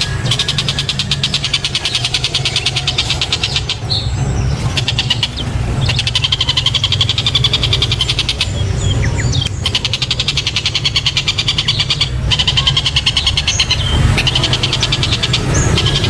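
Oriental dollarbird (tengkek buto) calling in a rapid rattling chatter, in runs of a few seconds each with short breaks between them. A steady low rumble runs underneath.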